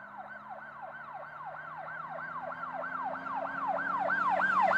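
Police-style yelp siren, its pitch sweeping up and down about three to four times a second, growing steadily louder.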